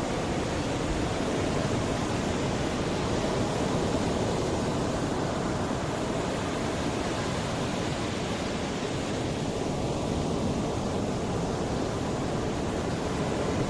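Sea waves washing ashore, a steady wash of surf with gentle swells in loudness.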